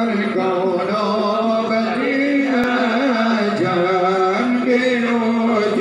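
A crowd of men chanting a devotional chant together in unison, with long held notes that step up and down in pitch.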